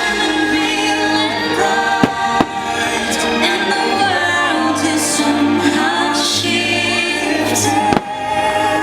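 Fireworks show soundtrack: orchestral music with singers and choir, broken by three sharp firework bangs, two close together about two seconds in and one near the end.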